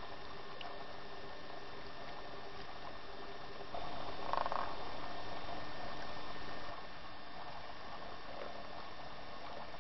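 Steady hiss and electrical hum of an old camcorder recording, with a louder stretch of rushing noise from about four to nearly seven seconds in.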